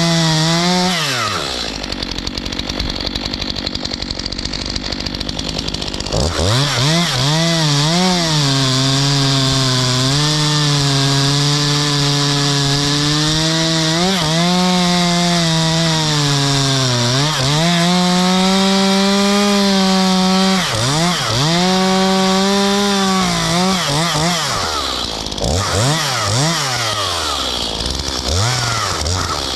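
Stihl MS 251 45 cc two-stroke chainsaw cutting ash wood. The engine drops to a low, rough running for about five seconds, then revs up and holds high under load, sagging briefly a couple of times, and goes up and down in revs near the end.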